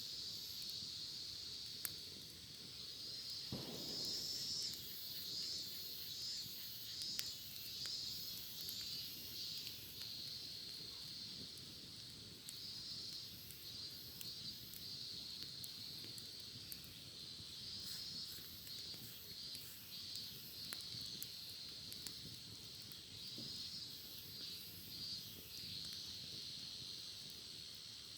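Cicadas singing in a dense chorus that pulses continuously. Occasional faint sharp crackles from a wood fire.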